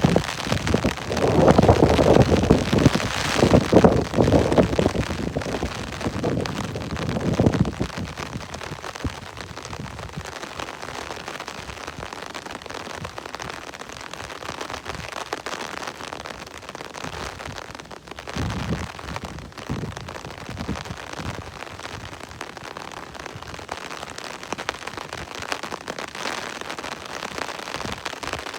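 Steady rain falling and pattering on surfaces. It swells into a louder, deeper stretch for the first several seconds and again briefly a little past halfway.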